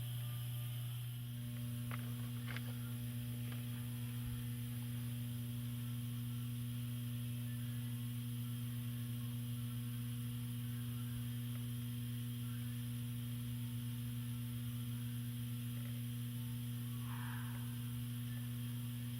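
Steady electrical mains hum, with a couple of faint clicks about two seconds in.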